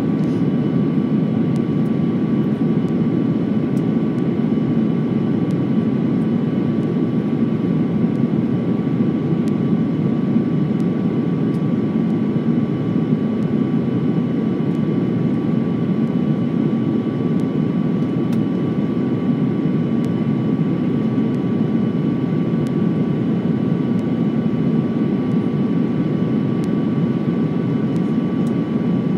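Jet airliner cabin noise on the approach to landing: a steady low rush of engines and airflow with a thin, steady whine above it.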